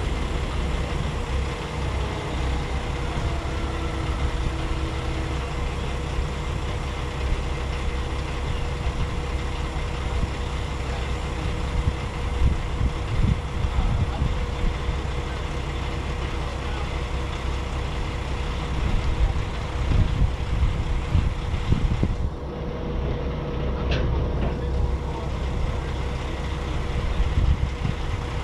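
Semi-truck diesel engine idling steadily, with irregular low rumbles rising and falling, and a single sharp click near the end.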